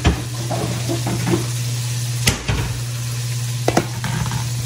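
A steady low hum with a hiss, with a sharp knock about halfway in and a quick double knock near the end as a white bowl is set down on the kitchen counter.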